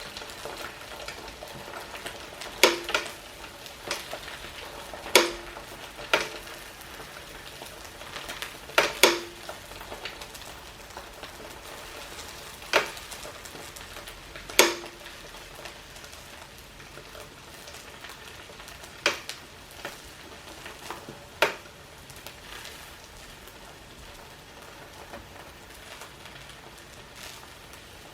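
Four eggs frying in oil on a sandwich press's hot plate: a steady sizzle broken by about a dozen sharp pops, most of them in the first two-thirds.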